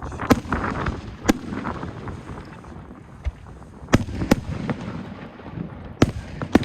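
Fireworks going off outdoors: six sharp bangs at uneven intervals, two of them in quick pairs, over a steady background rumble.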